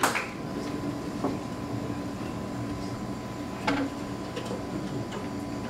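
Quiet stage noise between songs: a steady low hum with a thin steady tone through it, and a few soft knocks of instruments being handled, the clearest a little past the middle.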